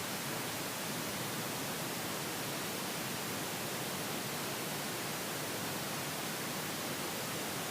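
Steady hiss of a noise test signal, the kind played through one speaker channel at a time to check a surround sound setup.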